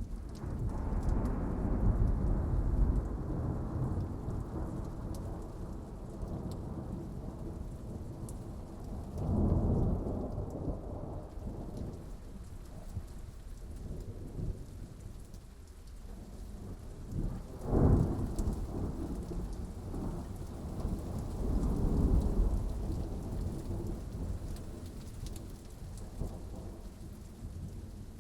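Thunderstorm: steady rain with repeated thunder. There are long low rumbles near the start and again about ten seconds in, a sharp crack about eighteen seconds in, and another rolling rumble shortly after.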